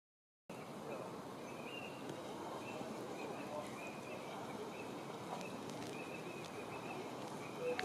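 Mallard drakes splashing and thrashing in shallow water, a steady rough wash of splashing. Faint short high bird calls repeat over it, and a brief louder call with a few clicks comes near the end.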